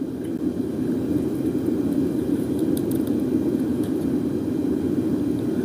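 Steady low rushing background noise with a few faint clicks in the middle.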